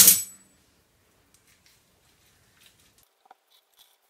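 Lemon being squeezed by hand over a plastic bowl: a short, loud crackly noise right at the start cuts off abruptly, then near silence with a few faint soft ticks and drips.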